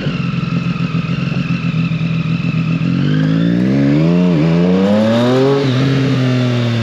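Motorcycle engine running steadily, then revving up over about two and a half seconds with a brief dip in the middle, and easing off near the end.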